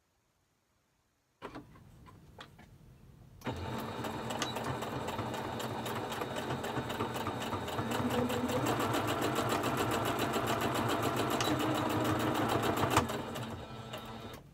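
Domestic electric sewing machine stitching a seam through folded fabric. It starts about three and a half seconds in and runs at a steady, rapid stitching rhythm, a little louder from about eight seconds. It stops with a click about thirteen seconds in.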